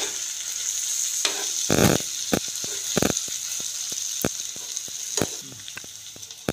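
Chicken pieces in spice masala sizzling in a nonstick frying pan while being stirred with a wooden spatula, with irregular scrapes and knocks of the spatula against the pan. One longer scrape comes a little under two seconds in, and the sizzle thins out near the end.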